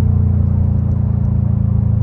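Engine and Tomei aftermarket exhaust of a 2021 Subaru WRX STI (turbocharged 2.5-litre flat-four) running under way at a steady speed. The low exhaust note holds a constant pitch, dipping slightly in loudness about a second in.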